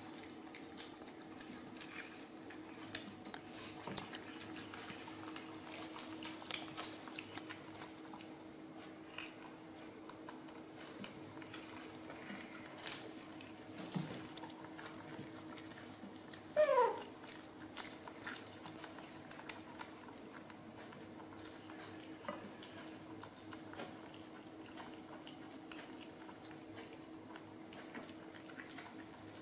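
Young macaques eating jackfruit: faint scattered clicks and smacks of handling and chewing the fruit over a steady low hum, with one short squeal falling sharply in pitch a little past halfway through, the loudest sound.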